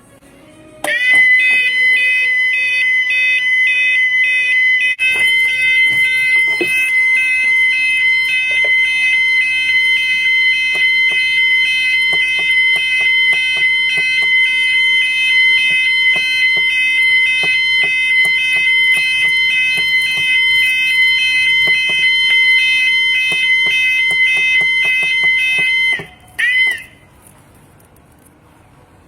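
Electronic sounder of a Protec Fire 5 fire alarm kit going off: a loud, steady shrill tone with a fast warbling pattern over it. It starts about a second in and cuts off abruptly a few seconds before the end, followed by one short chirp.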